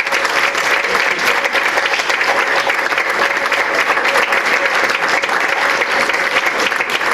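Audience applauding: many hands clapping in a steady, even stream.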